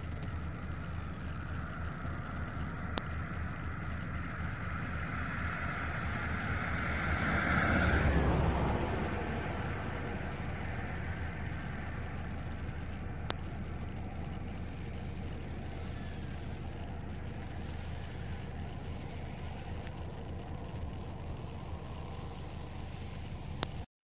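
Car driving along a country road, a steady rumble of engine and tyres that swells to a peak about eight seconds in and then eases off. There are three faint ticks along the way.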